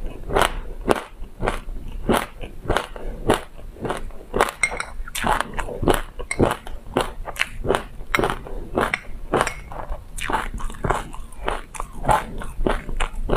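Close-miked chewing of a mouthful of sesame seeds and passion fruit: steady crunching, about two to three crunches a second.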